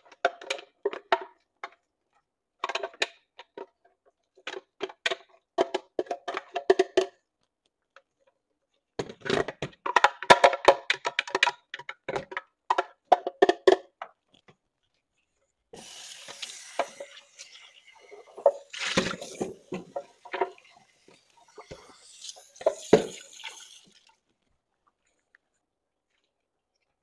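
A spatula knocking and scraping against a plastic blender jug and a frying pan as a blended mix is emptied into the pan, in quick clusters of taps over the first half. Later comes a softer wet, mushy stirring noise with a few knocks of the spatula on the pan, then it goes quiet near the end.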